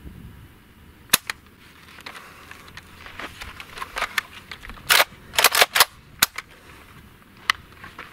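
VULKAN-M bullpup AK-pattern rifle firing unsuppressed through its muzzle brake: about nine sharp, loud shots in irregular strings, several fired in quick succession around the middle.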